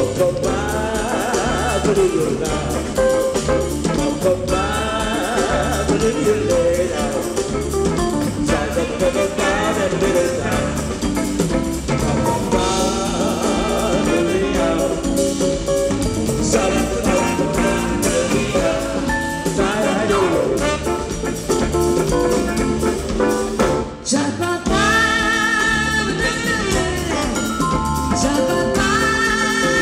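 Live jazz band playing over a steady drum beat, with a woman singing lead. The music drops out briefly about four-fifths of the way through, then comes back in.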